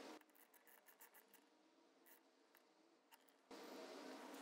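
Faint clicking of a socket ratchet tightening a bolt on a motorcycle engine case, a few short ticks.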